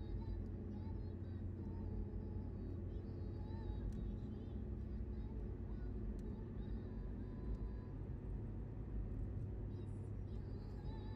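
Car driving at highway speed: a steady low rumble of engine and road noise.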